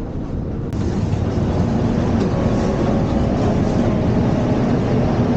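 Steady rumble of a moving vehicle, with a faint steady whine of a few tones coming in after a second or so.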